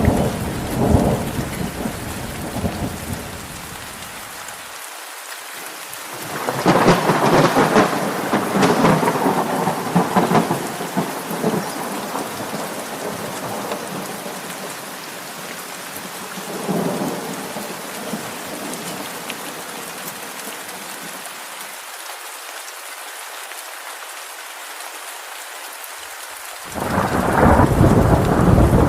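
Steady rain falling, with rolls of thunder: a rumble at the start, a long loud roll from about six to eleven seconds in, a short one near seventeen seconds, and another loud one beginning near the end.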